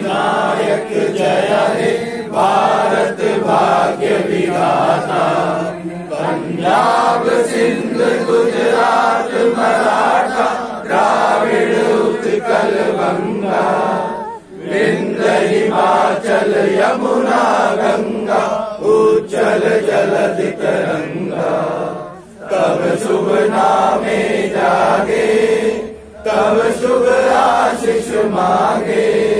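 A group of voices singing together in unison, in long phrases broken by brief pauses about halfway through and twice near the end.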